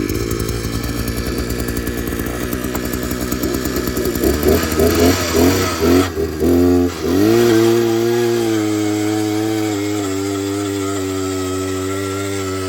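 Small gasoline engine running. About four seconds in it labours unevenly, its sound wavering and dipping, then it settles to a steady, slightly higher speed.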